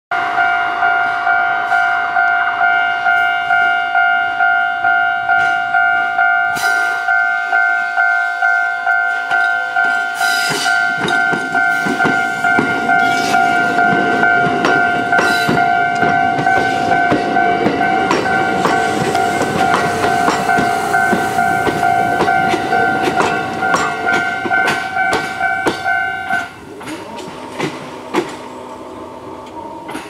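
Japanese level-crossing warning bell ringing in an even, rapid two-tone ding, a little under two strokes a second, and stopping a few seconds before the end. From about ten seconds in, a Kintetsu 1437-series electric train rolls slowly across at shunting speed, its wheels clacking over the rail joints.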